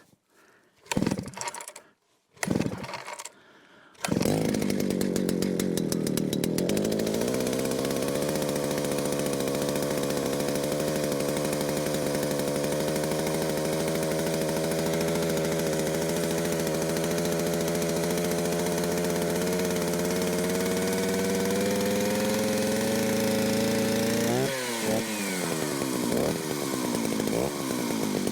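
A few knocks, then a Jonsered 801 two-stroke chainsaw engine running steadily at idle from about four seconds in, its pitch creeping slowly upward. Near the end it revs up and drops back several times in quick blips of the throttle.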